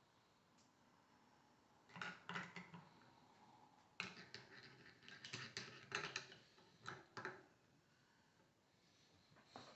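Small metal tools clicking and clacking in short bursts, about two seconds in and again from four to seven seconds in: a ring spanner knocking against a screwdriver shaft as it is fitted and turned to loosen a stuck screw on a Bafang geared hub motor's cover.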